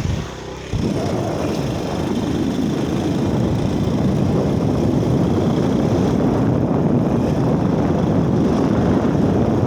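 Heavy machine engine running steadily, with a loud low rumble that comes in sharply about a second in.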